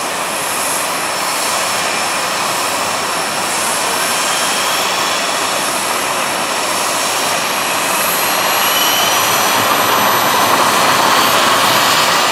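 Two model gas turbines in large-scale RC Bell 206 JetRanger helicopters spooling up on the ground: a steady rushing turbine noise with a high whine, growing louder about two-thirds of the way in.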